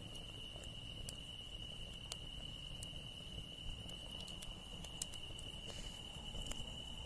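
Insects singing a steady high-pitched trill, with sharp crackles and pops from a wood campfire now and then.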